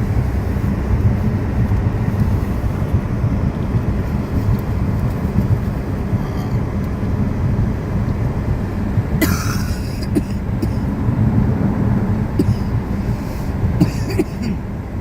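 Steady low road and engine rumble inside a moving car's cabin on icy roads, with a brief hiss about nine seconds in.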